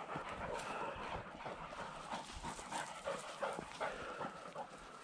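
Springer spaniel panting and whining close by, in short irregular sounds.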